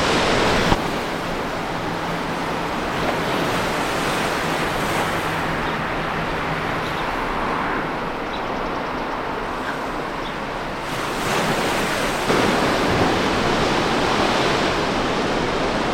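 Sea surf washing against the rocky shore below the cliffs, a steady rushing noise with some wind on the microphone. The sound changes abruptly about a second in and again near eleven seconds.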